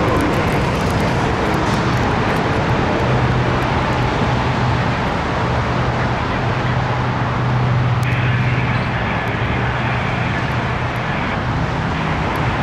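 Freight train rolling away on street-running track, with a steady low drone from its EMD GP38N diesel locomotive under a wash of train and road noise. A higher steady tone joins about eight seconds in and lasts about three seconds.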